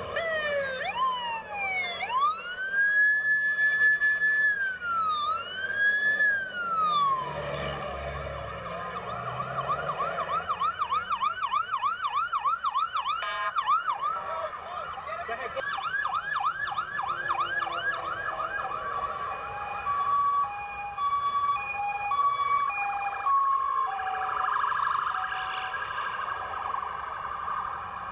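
Emergency vehicles' electronic sirens passing one after another: falling sweeps, then a slow wail rising and falling, then a long run of fast yelping, and a two-tone hi-lo alternation near the end.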